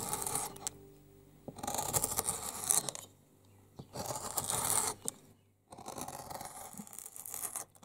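Steel of a klyukarza (bent woodcarving chisel) scraping on an abrasive as it is sharpened: three spells of scratchy strokes, each a second or two long, with short pauses between.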